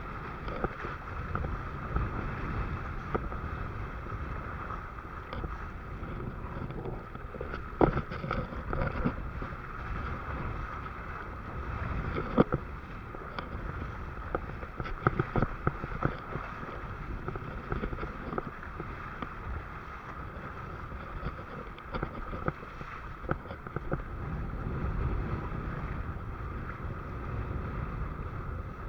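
Wind buffeting the microphone over water rushing past a windsurf board, broken now and then by sharp slaps, the loudest about 8 and 12 seconds in.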